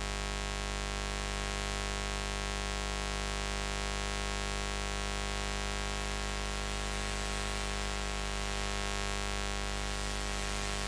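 Steady, unchanging buzz: a low hum with a long ladder of evenly spaced overtones reaching high up, with a hiss over it.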